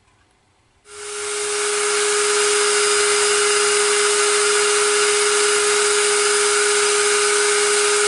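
A high-speed electric motor switches on about a second in, spins up within about a second, and then runs loud and steady: a strong hiss with one steady hum.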